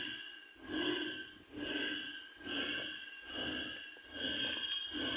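Temple bell rung over and over, about one stroke every 0.8 s, each stroke ringing with steady high tones. It is being rung for puja at the temple, which the listener takes it to mean.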